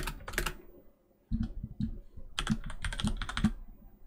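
Typing on a computer keyboard: quick runs of keystrokes, with a short pause about a second in.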